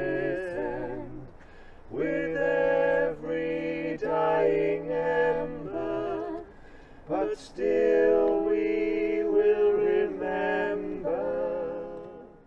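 A lullaby sung unaccompanied by male and female voices in harmony, in slow phrases of long held notes with short breaks between them. It fades out right at the end.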